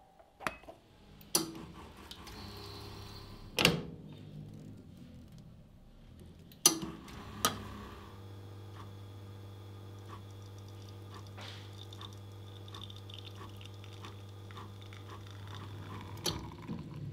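Several sharp clicks and knocks as the portafilter is locked into a home espresso machine, then the machine's pump hums steadily while an espresso shot pulls, with a faint regular ticking. The hum stops with a knock near the end.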